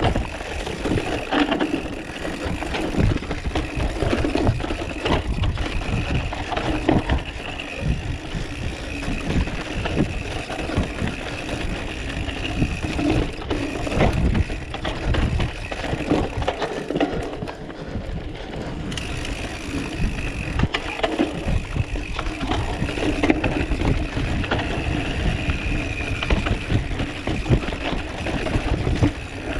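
Mountain bike ridden fast over a rough trail, the bike rattling and knocking continuously over the bumps, with heavy wind rumble on the microphone.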